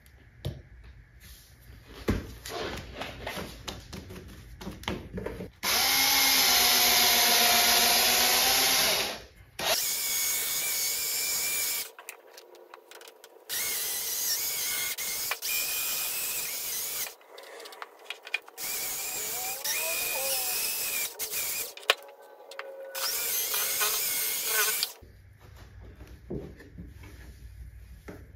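Cordless drill spinning a soft foam buffing pad against a plastic headlight lens, for a final polishing pass with plastic polish. It runs in about five bursts of a few seconds each, with quieter rubbing and handling clicks before and between them.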